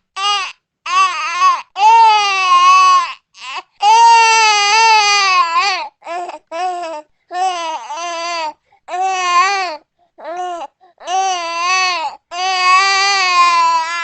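Newborn baby crying: a string of pitched, wavering wails, some brief and some about two seconds long, broken by short pauses between cries.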